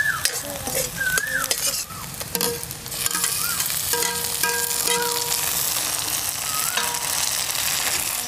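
Steel ladle stirring and scraping onions frying in oil in an iron kadhai, with clicks of the ladle against the pan. About three seconds in, chopped tomato goes into the hot oil and a steady sizzle takes over.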